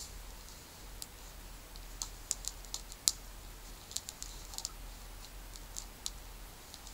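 Small wood fire crackling, with irregular sharp pops and ticks, the loudest about three seconds in.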